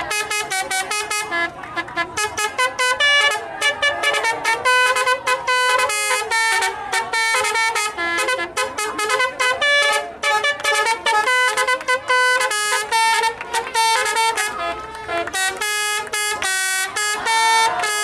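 Telolet musical horn on a tour bus playing a fast tune: a near-continuous run of short, loud horn notes that jump up and down in pitch, with brief breaks between phrases.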